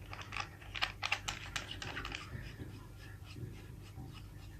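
Light clicking and tapping of small pressure-washer quick-release fittings being handled, a quick flurry of clicks in the first two seconds, then sparser and fainter.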